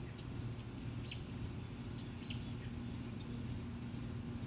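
Outdoor ambience: a steady low hum with several short, high bird chirps scattered through it.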